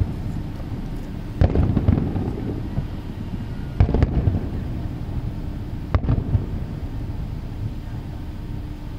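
Aerial fireworks shells bursting: three loud bangs about two seconds apart, each followed by a spell of crackling.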